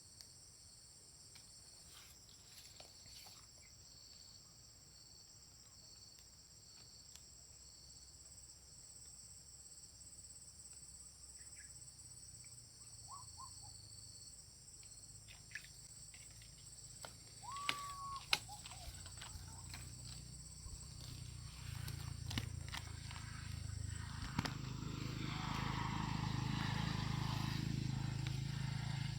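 Insects buzzing in two steady high-pitched drones, like crickets or cicadas. A short whistle-like call with a few clicks comes about two-thirds of the way in, and a low rumble with rustling noise swells over the last several seconds.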